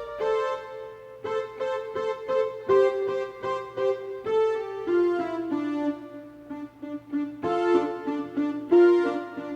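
Electronic keyboard playing a forró melody of short, quickly changing notes over held chords.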